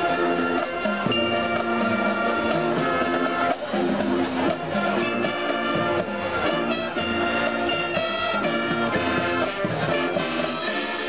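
High school marching band playing, its brass section carrying sustained chords and a moving melody, with a stretch of quick repeated notes in the middle.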